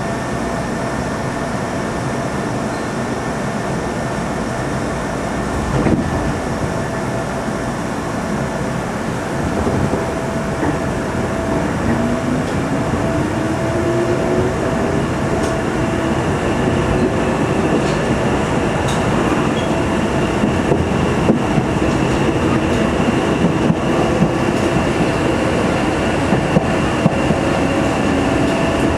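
Sangi Line electric train running, heard from on board: steady rumble of wheels and motors, growing louder, with a whine that rises in pitch from about twelve seconds in as the train picks up speed. Sharp clicks of the wheels over rail joints come more often in the second half.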